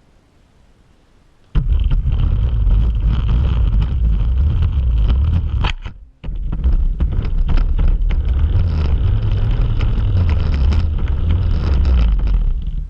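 RC car driving across the floor with the GoPro riding on it: a loud rumble of wheels and chassis vibration with a faint higher motor whine. It starts about a second and a half in, stops briefly near the middle, then runs again until just before the end.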